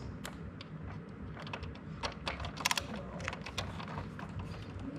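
A run of irregular light clicks and taps, like typing, with a quick cluster of clicks about two and a half seconds in, over a low steady background hum.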